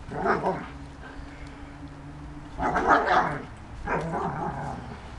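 A dog barking in short bursts while playing: one bark about a third of a second in, then a louder cluster around three seconds in and another around four seconds in.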